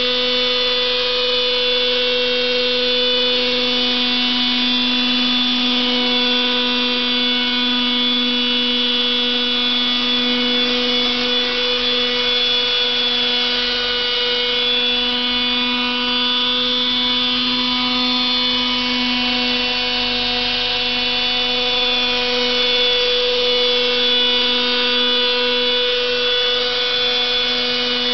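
Radio-controlled helicopter with a glow-fuel (nitro) engine running steadily at flight speed as it hovers and manoeuvres low. It makes a constant engine whine with the rotor sound mixed in, and its pitch wavers only slightly.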